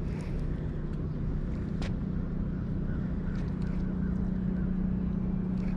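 Steady low mechanical hum over a low rumble; its pitch steps up slightly about a second and a half in. A single sharp click comes near two seconds.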